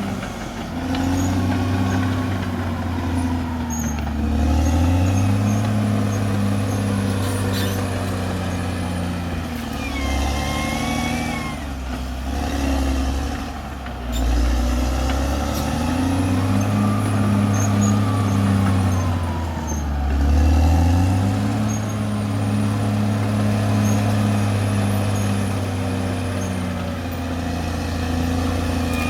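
Caterpillar D6R XL bulldozer's diesel engine working under load, its speed rising and falling several times as the machine works. A brief high squeal comes about ten seconds in.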